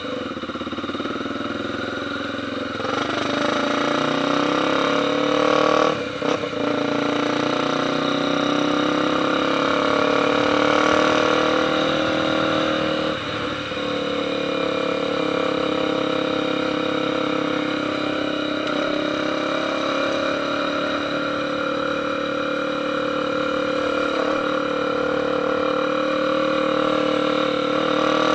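Motorcycle engine running at a fairly steady speed, its pitch drifting slightly, with two brief dips about six and thirteen seconds in.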